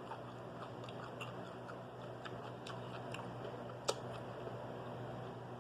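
Chewing a fried popcorn-shrimp po' boy sandwich: soft scattered crunches and wet mouth clicks, with one sharper click about four seconds in, over a low steady hum.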